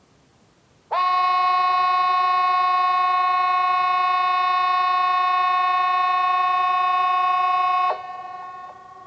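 Hesa Fredrik, the Swedish outdoor warning siren, sounding one steady two-pitch tone that starts suddenly about a second in, holds for about seven seconds and cuts off sharply. A fainter tone lingers after it stops.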